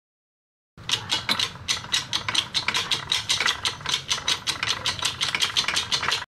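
Hydraulic press driving a press brake punch that bends a steel strip into a V-die, heard as fast, even mechanical clicking at about five or six clicks a second. The clicking starts suddenly about a second in and cuts off abruptly.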